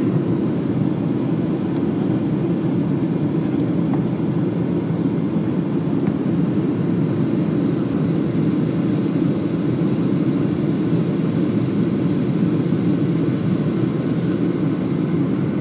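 Steady cabin noise of a Ryanair Boeing 737 jet airliner in flight, heard from a window seat over the wing: the even drone of the engines and rushing air, unchanging throughout.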